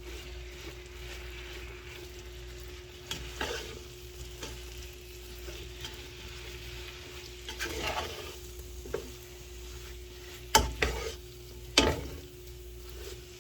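Carrots, long beans, egg and onions sizzling in a frying pan as they are stirred, with a spatula knocking and scraping against the pan a few times, the two loudest knocks near the end. A steady hum runs underneath.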